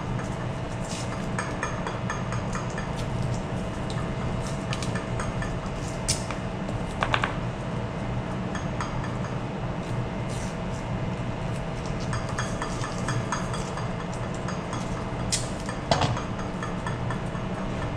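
Steady low hum of a ship's machinery, over which white rope rustles and slides as it is worked by hand into a knot, with scattered light clicks and clinks.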